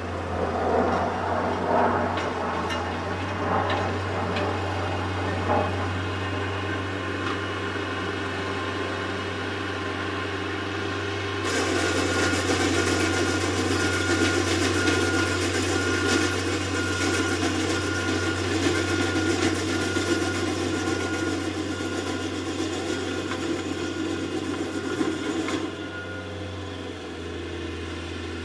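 Diesel heavy equipment working at the far edge of the field: engines running steadily, turning suddenly louder and harsher for about fourteen seconds from near the middle, while a series of evenly spaced high beeps sounds.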